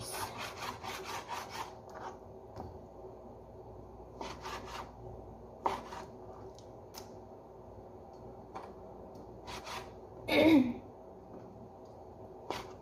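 Kitchen knife slicing raw chicken breast on a plastic cutting board, the blade rubbing and knocking against the board: a quick run of strokes in the first two seconds, then single cuts every second or so. About ten seconds in there is a brief, louder sound.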